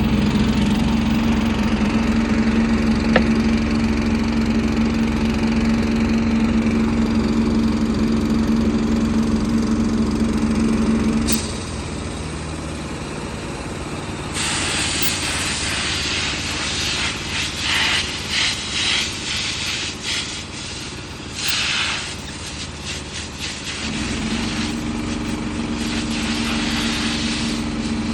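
A steady engine hum runs, then stops partway through. Compressed air then hisses from an air nozzle in a run of short and long spurts as dust is blown out of the air-conditioning filters. The engine hum returns near the end.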